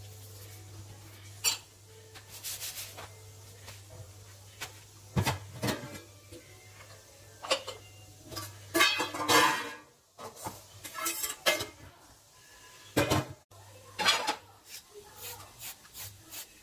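Steel kitchenware clinking and clattering: a spoon against a ghee jar and rotis, and a stainless steel container being handled, loudest about halfway through. Near the end, quick repeated scraping strokes of a vegetable peeler on a carrot.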